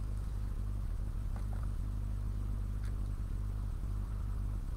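Steady low background rumble with no speech, and a couple of faint clicks about a second and a half and three seconds in.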